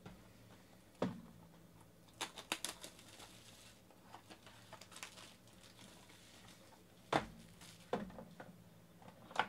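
A Topps Tier One trading-card hobby box being handled and opened by hand. A knock about a second in, a short run of crackling and tearing from the box and its wrapping, then a few light knocks as the foil pack is laid on the table near the end.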